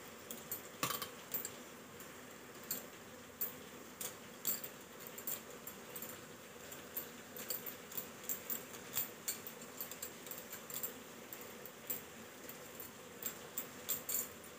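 Soft, irregular clicking and rustling of a plastic mesh net being rolled up over a hand and forearm, with bangles on the wrist clinking lightly now and then.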